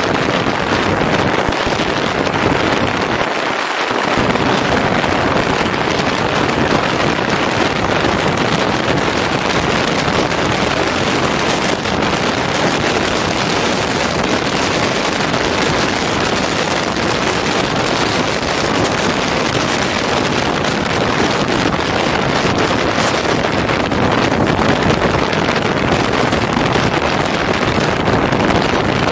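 Wind rushing over the microphone of a camera mounted on a motorbike at road speed, a steady roar with the bike's engine and tyre noise blended underneath. The low rumble drops out briefly about three and a half seconds in.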